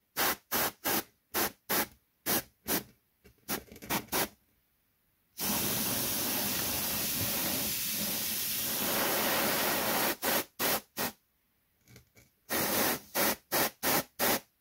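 Airbrush spraying thin blue ink in short hissing bursts, two or three a second, then in one continuous spray of about four and a half seconds, then in short bursts again: a light shading pass on a resin figure.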